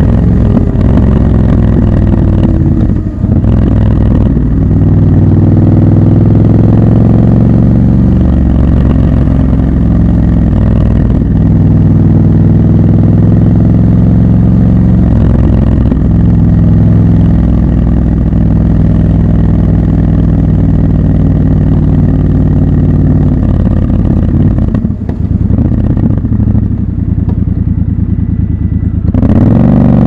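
Triumph Scrambler 1200 XC's parallel-twin engine running under way through city traffic, its pitch stepping at a few brief breaks as gears change. Near the end the revs drop back, then climb sharply as the throttle opens again.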